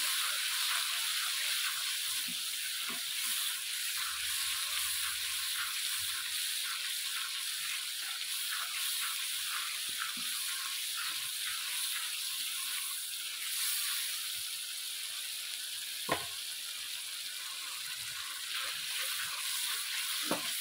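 Potatoes and peas frying in oily spiced masala with yogurt in a pan, sizzling steadily as they are sautéed (bhuna), while a spatula stirs and scrapes them with light taps. There is a sharper tap about 16 seconds in and another near the end.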